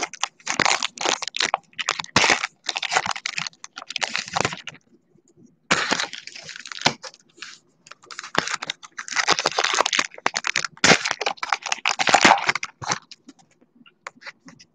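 Rustling and crackling of a trading-card pack being opened and its cards handled, in two long stretches with a pause of about a second roughly five seconds in.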